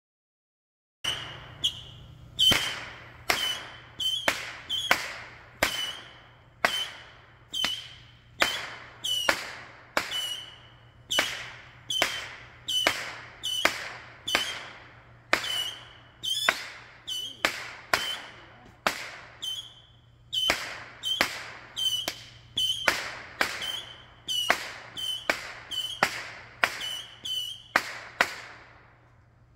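Fireworks going off: a long run of sharp bangs starting about a second in, roughly one to two a second, each followed by a short echo.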